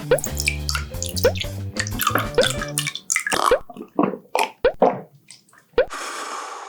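Outro music: a steady bass line under short, bubbly, drip-like notes that glide upward. About three seconds in the bass stops, leaving separate blooping notes, with a brief hissing swell near the end.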